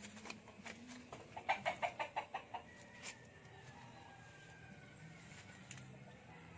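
A chicken clucking in a quick run of about ten clucks, starting about a second and a half in. A few sharp clicks sound around it.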